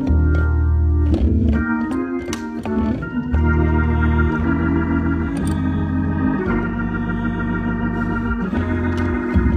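Organ playing held chords over a bass line that moves to a new note every second or so, with a few sharp accents.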